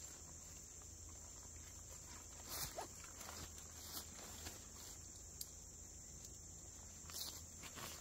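Faint, steady high-pitched insect chorus, with a few soft knocks like footfalls on the forest floor about two and a half, four and seven seconds in.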